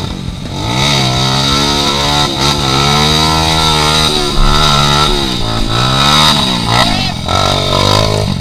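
Trail dirt bike engine revving hard, its pitch rising and falling again and again, as the bike is forced out of deep mud with helpers pushing.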